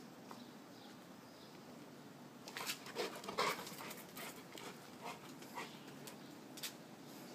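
Rottweiler breathing and making mouth noises with a rubber toy held in its mouth, faint. A quick cluster of short sounds about three seconds in is the loudest part, with a few single clicks after.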